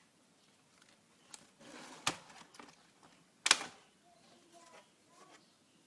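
Two sharp clicks or knocks about a second and a half apart, with a short rustle of handling just before the first.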